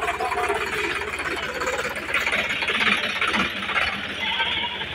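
Sonalika DI 50 RX tractor's diesel engine running at low revs with an even, rhythmic clatter as the tractor moves slowly.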